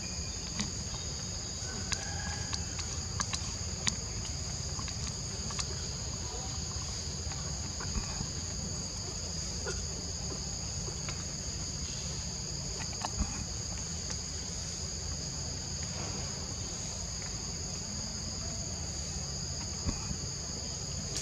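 Steady high drone of forest insects at two even pitches, over a low rumble, with scattered soft clicks and taps.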